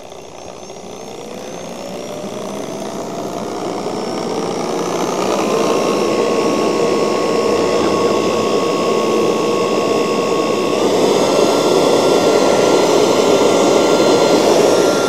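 Corded Worx electric leaf blower (120 V, 12 A) spinning up at its low speed with a rising whine, then switched to its high speed about eleven seconds in, where the whine steps up in pitch and keeps running. It runs off a Tesla's V2L adapter, step-started at low speed to stay under the adapter's 16 A limit.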